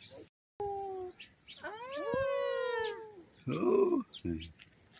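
Bird calls in trees: a short, flat whistled note just after a second's dropout, then a long, loud nasal wailing call that rises and then falls for about a second and a half.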